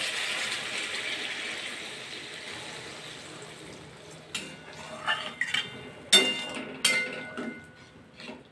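Water poured into a hot metal kadai of fried vegetables and masala, a hiss that fades away over the first few seconds. After that a metal spatula scrapes and knocks against the kadai several times as the gravy is stirred, the loudest knocks ringing briefly.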